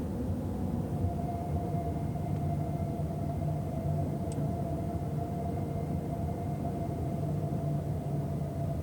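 Steady cabin noise of a Toyota RAV4 hybrid driving at a constant speed: a low, even rumble of road and drivetrain with a faint whine held at one pitch.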